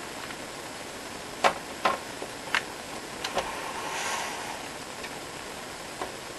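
Hands handling a cable and plastic parts inside a keyboard housing: a handful of sharp clicks and light knocks at irregular intervals, with a brief rustle about four seconds in, over a steady hiss.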